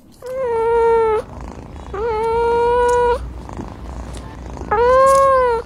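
A cat purring, with three drawn-out squeaky calls of nearly even pitch, each about a second long.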